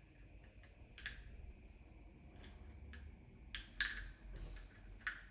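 Scissors snipping open a small descaler sachet over a glass jar: a handful of separate sharp clicks and snips, the loudest a little before four seconds in.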